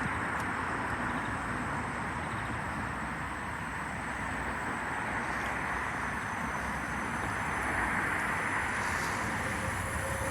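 Steady rushing noise of an approaching Avanti West Coast Class 390 Pendolino electric train, growing a little louder near the end.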